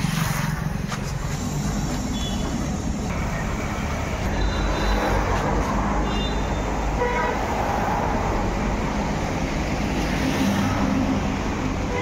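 Steady road traffic noise with a brief car-horn toot about seven seconds in.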